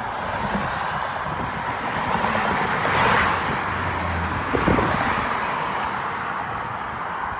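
Freeway traffic rushing past, with one vehicle passing close and loudest about three seconds in.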